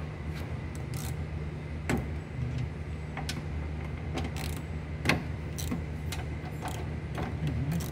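Irregular metallic clicks and taps of a socket wrench working the side-mirror mounting nuts inside a car door, with one louder knock about five seconds in, over a steady low hum.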